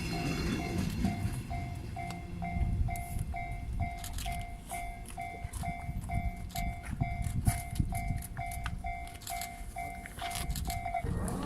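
Japanese level-crossing warning bell ringing in even pulses, a little over two a second, which stop just before the end. Underneath are a low rumble and scattered clicks.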